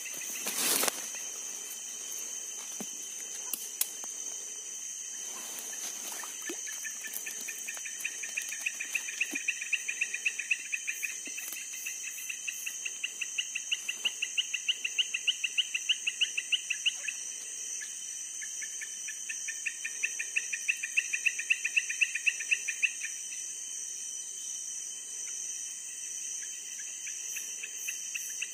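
Night insect chorus: a steady high shrill drone, with a nearby caller giving long runs of rhythmic chirps, several a second, that swell, stop, and start again. A single brief knock sounds just under a second in.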